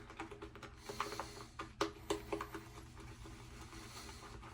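Synthetic shaving brush being swirled through lather in a shaving bowl: faint soft rubbing with light ticks of the bristles against the bowl, getting quieter about halfway through.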